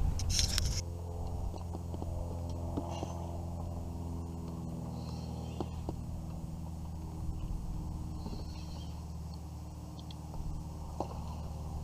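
A steady, low mechanical hum, like a motor running at an even speed, with a brief scratchy rustle in the first second.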